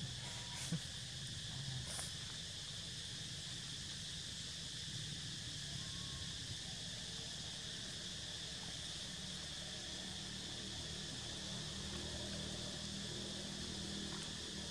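Steady chorus of insects, a constant high buzz with no break, over a low outdoor rumble; a couple of faint ticks near the start.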